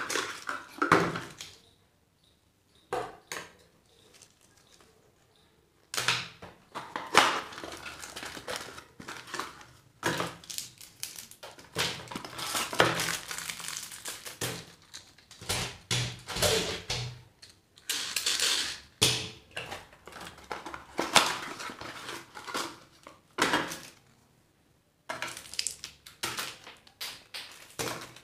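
Hands handling small cardboard boxes, plastic-wrapped sweets and small plastic toys on a tabletop: rustling and crinkling of wrappers, scraping card and clicks of plastic, in irregular bursts with a few short pauses.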